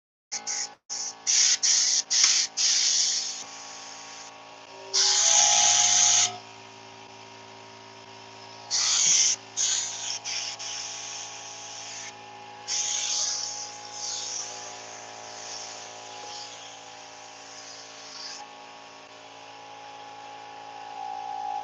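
Compressed air hissing from an HVLP spray gun, triggered in bursts: several short ones at first, then longer blasts of one to several seconds, blowing dust off the helmet before painting. A steady low hum runs underneath.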